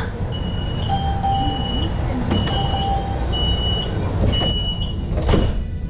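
Alstom Citadis tram's warning beeper sounding at a stop: a high beep about once a second, five times, over the tram's low steady hum. A sharp knock near the end.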